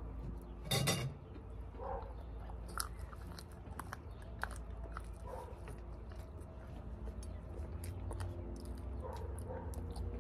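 Someone eating: chewing and light clicks of utensils on dishes, with a short loud burst of noise about a second in, over a steady low rumble.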